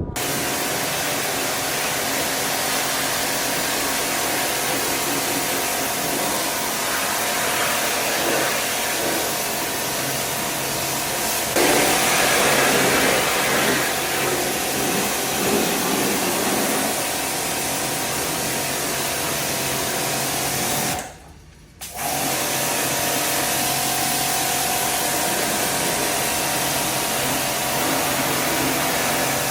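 Steady whir of an electric motor with fan or air noise and a constant hum. It cuts out suddenly for about a second late on, then resumes.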